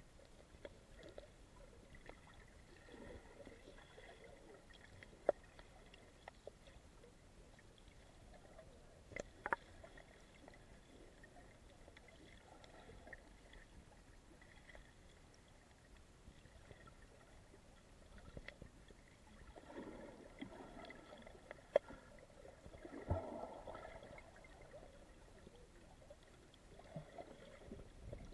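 Faint, muffled underwater sound: low water movement against the microphone, with a few sharp clicks and knocks scattered through and soft swells of water noise.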